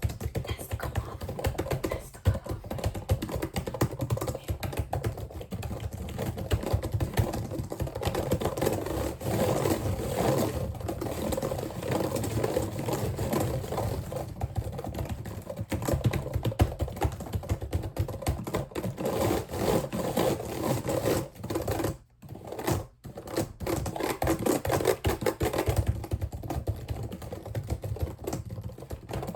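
Dense, rapid clicking and tapping for relaxation, with two brief breaks about three quarters of the way through.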